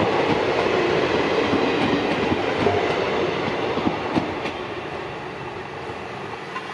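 Passenger coaches of an express train passing at speed, wheels rumbling and clicking over the rail joints, with the sound fading from about four seconds in as the last coach goes by and draws away.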